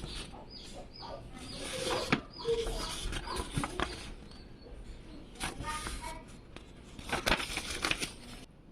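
Handling noise: irregular rustling, several sharp clicks and knocks, and short squeaks.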